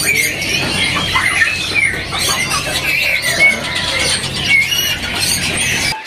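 A crowded cage of Pekin robins chirping and chattering together: many short, overlapping high chirps and squeaky notes, over a steady low background din.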